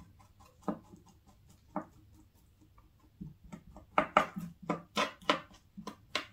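Kitchen knife scraping along a salted herring fillet against a plastic cutting board as the membrane is cleaned off: two soft isolated taps, then a run of short scraping strokes, about three a second, over the last few seconds.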